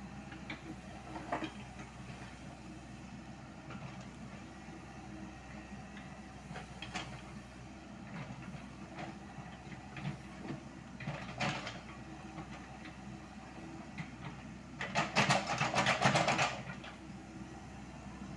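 Komatsu PC78US mini excavator's diesel engine running steadily while its steel bucket scrapes and knocks on stones, with scattered clanks. Near the end comes a loud rattle of gravel lasting about a second and a half, as the bucket digs into the gravel and loads it.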